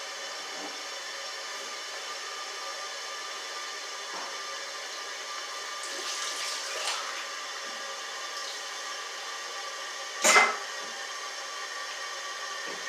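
Toilet tank refilling: a steady hiss of water through the fill valve, with a brief noisier patch past the middle and one sharp knock about ten seconds in.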